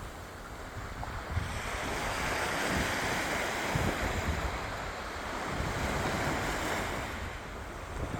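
Sea waves breaking and washing ashore: a wash swells about a second and a half in, is loudest in the middle and ebbs near the end, with wind buffeting the microphone underneath.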